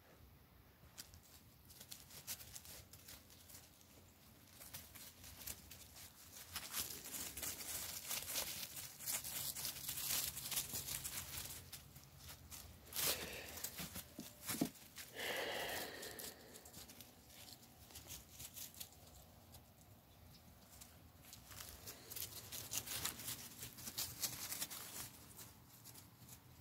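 Dry leaves and ground litter rustling and crackling under footsteps and scampering puppies: many quick, uneven crackles, busiest in the middle, with a couple of sharper knocks there.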